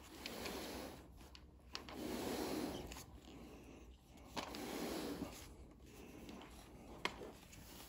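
Faint rubbing and handling noises from cleaning gear being moved over carpet, coming in three swells of about a second each, with a few light ticks.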